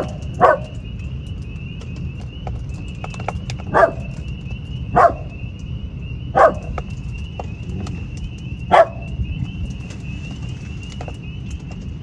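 A dog yaps about six times at irregular intervals, short sharp yaps that stand out loudly over a steady, high-pitched chorus of spring peepers peeping.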